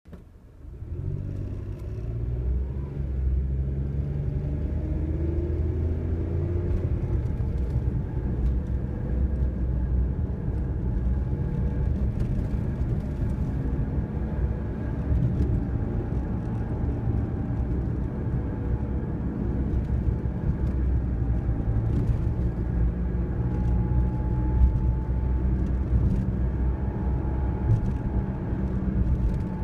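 Car driving, heard from inside the cabin: steady road and tyre rumble with a 'woooon' drone from a worn front wheel hub bearing. Through the second half a steady tone sits above the rumble.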